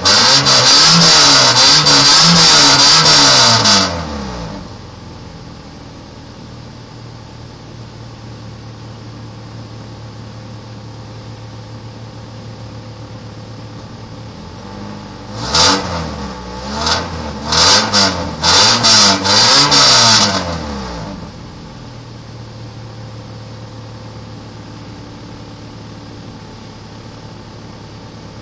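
Stock Honda Civic's D16Y8 1.6-litre SOHC VTEC four-cylinder engine revved high and held for about four seconds, then falling back to a steady idle. About halfway through it is blipped several times in quick succession before settling back to idle.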